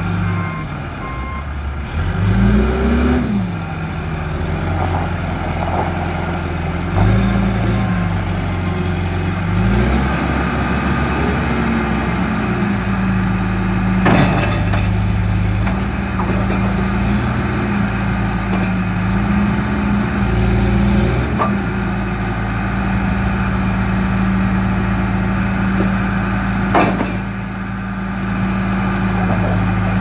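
John Deere 310SG backhoe loader's four-cylinder diesel engine running, revving up and down several times during the first ten seconds, then holding a steady higher speed while the loader works. A sharp knock comes about fourteen seconds in, and another near the end.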